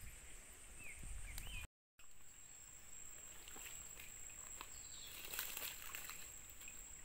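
Quiet forest-pool background with a steady high-pitched whine and a few faint bird chirps in the first second or so; about five seconds in, a brief burst of splashing as small freshly caught fish thrash in a plastic bucket of water.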